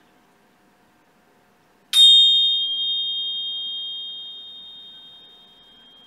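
Tingsha cymbals struck together once, about two seconds in: a sharp clink, then a high, pure ringing of two close tones that slowly fades over about four seconds. It is the signal that ends the relaxation and calls attention back.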